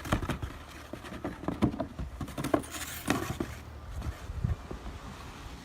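Snow crunching and scraping in irregular, scattered crunches and knocks, over a low rumble of wind on the microphone.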